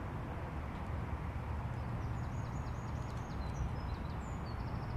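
A steady low hum of idling machinery, with small songbirds chirping and trilling from about two seconds in.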